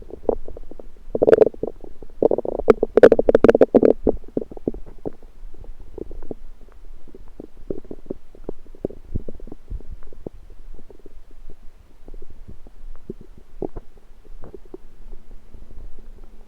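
Human stomach rumbling and gurgling. A loud run of gurgles in the first few seconds gives way to softer, crackling gurgles that keep going on and off.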